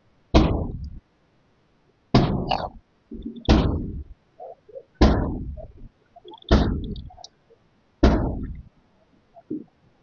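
Police forcing a door: six heavy blows, about one every second and a half, each ringing off the surrounding buildings with a short echo.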